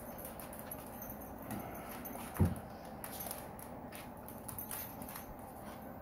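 Dog claws clicking and scrabbling on a hard floor as a mini goldendoodle and a Labrador retriever tussle over a towel, with one short low thump about two and a half seconds in.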